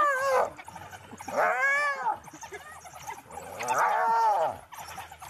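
Spotted hyena under attack by a pack of African wild dogs, giving loud, drawn-out distress yells that rise and then fall in pitch. Each yell lasts about a second and they come roughly every two seconds: one ends just after the start, then two more follow.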